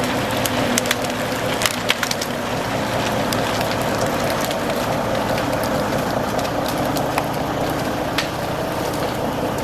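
A steady engine running, with many sharp cracks and snaps of wood scattered over it: branches and timber breaking as logs are worked.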